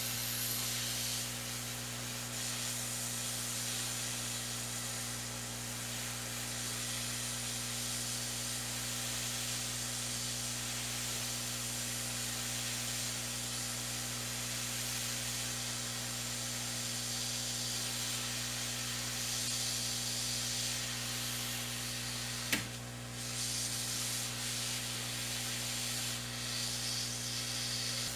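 Hot-air rework station blowing a steady hiss of hot air to melt the solder on a laptop's DC power jack, with a low steady hum beneath it. A single sharp click comes about two-thirds of the way through.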